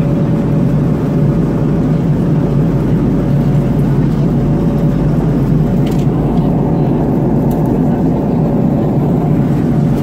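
Steady cabin noise of an Airbus A330-200 in flight: a loud, even rumble of engines and airflow with a thin steady hum through it, and a couple of faint clicks past the middle.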